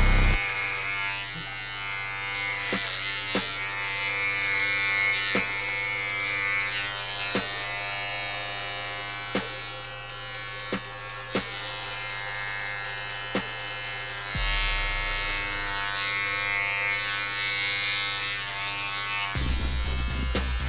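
Electric hair clippers buzzing steadily while cutting hair close, over background music. A deep bass note comes in about two-thirds of the way through and grows louder near the end.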